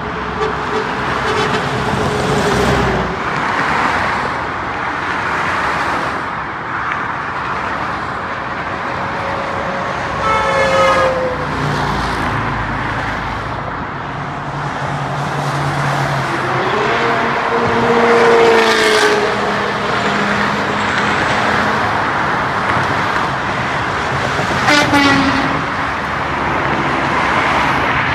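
Continuous freeway traffic: steady tyre and engine noise from many lanes of cars and trucks. Now and then a single vehicle passes with a whine that slides down in pitch as it goes by, about ten, eighteen and twenty-five seconds in.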